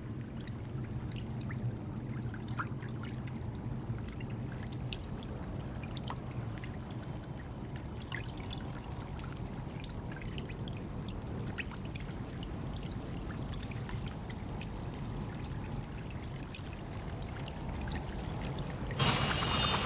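Flowing water with scattered drips and trickles, a steady watery rush. Near the end a louder, brighter rush of water sets in suddenly.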